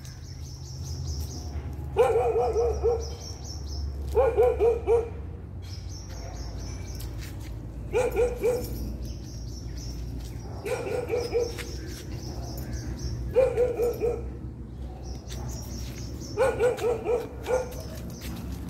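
A dog barking in about six short volleys of three to five quick barks each, a few seconds apart.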